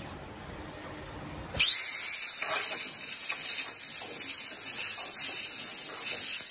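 A low machine hum, then about one and a half seconds in a CNC plasma torch (Hypertherm Powermax45 XP) fires its arc with a sudden, loud, steady hiss. The hiss goes on while sparks spray across the top of the sheet, in a cut that fails.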